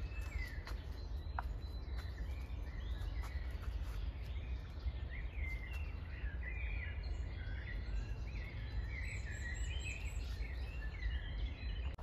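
Several songbirds singing and chirping, busier in the second half, over a steady low rumble.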